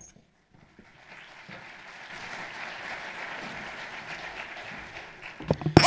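Audience applauding, swelling over the first couple of seconds and dying away, then a few sharp, loud knocks near the end.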